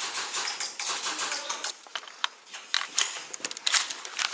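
Scattered sharp clicks at uneven intervals over a rustling, hissy noise.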